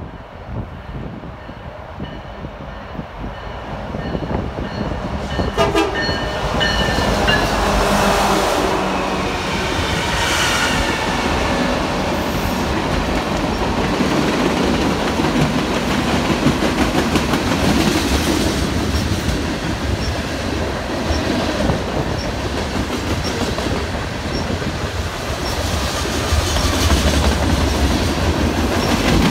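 A long diesel freight train approaches and passes close by. Its locomotives sound an air horn for several seconds as they go by, the pitch sagging slightly. Then the freight cars roll past with a steady rumble and clack over the rail joints.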